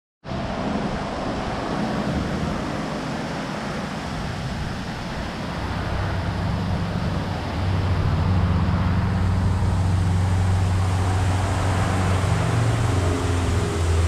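Waterfall roar: a steady rushing noise with a deep rumble underneath, growing louder about seven or eight seconds in.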